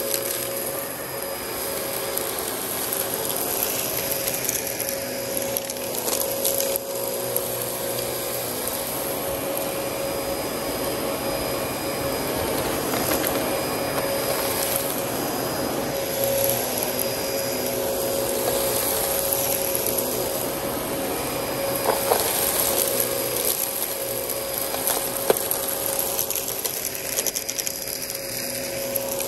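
Dyson DC14 upright vacuum cleaner running steadily with a constant motor whine as it sucks up fine dirt and fluff from concrete, with a few sharp clicks of grit being drawn through the cleaner head.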